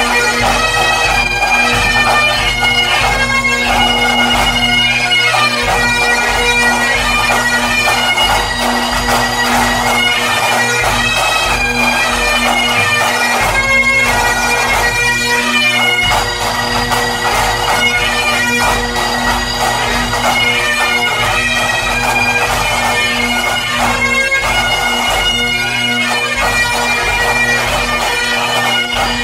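Highland pipe band playing: Great Highland bagpipes sound a melody over their steady drones, with the band's snare, tenor and bass drums keeping an even marching beat.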